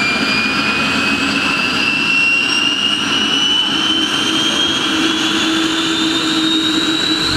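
IAR 330 Puma helicopter's turboshaft engine spooling up during start-up: a turbine whine rising slowly and steadily in pitch over a constant engine rush.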